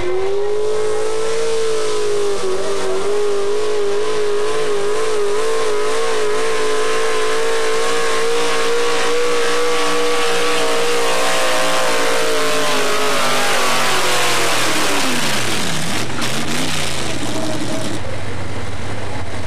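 Pro street four-wheel-drive pickup truck's engine at full throttle pulling a weight-transfer sled: the revs climb in the first second, hold high and steady for about twelve seconds, then fall away as the pull ends. Near the end another truck's engine idles.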